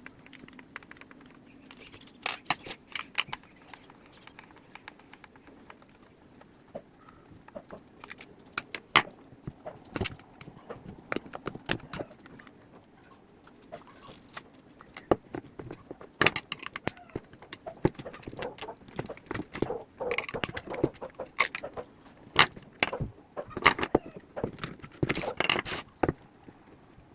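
Irregular clicks, taps and light scrapes of small hand tools against the plastic casing and parts of a JBL Flip 2 Bluetooth speaker being taken apart. They come sparsely at first and grow busier and louder about halfway through.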